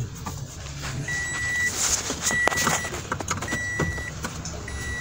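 A Toyota car's electronic warning chime beeping at a steady pace, four high beeps about one every 1.2 seconds, starting about a second in. A low steady hum runs underneath, with a few sharp clicks between the beeps.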